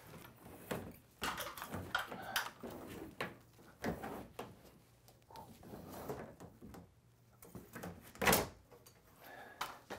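Old electrical cable being pulled out through wooden ceiling joists: irregular rustling, scraping and light knocks, with one sharper knock about eight seconds in.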